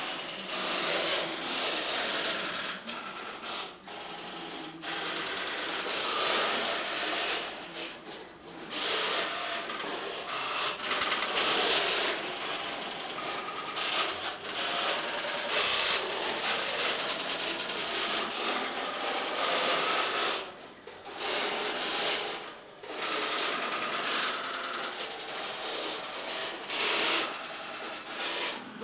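Tesla P51 electromechanical telephone exchange in operation: banks of relays and switches clicking and clattering continuously in a dense chatter, easing off briefly a few times.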